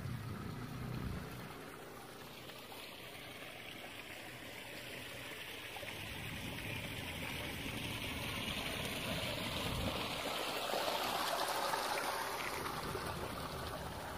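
Running water, like a small stream, heard as a steady hiss that grows louder over several seconds and eases a little near the end.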